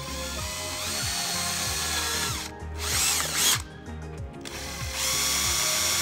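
Power drill boring holes in a plastic body-kit piece for its mounting screws. It runs in spells: it picks up speed about a second in, stops, gives a short burst, pauses, then runs steadily again near the end. Background music plays under it.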